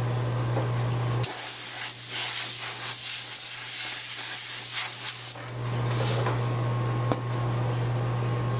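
A jet of compressed air blowing in one continuous hiss for about four seconds, starting a little after a second in, to clear broken glass fragments off the iPad's frame.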